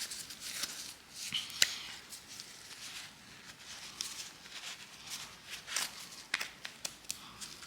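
Faint rubbing and wiping inside a mountain bike's bottom bracket shell, with a few scattered light clicks and scrapes, as loose metal filings and grime are cleaned out.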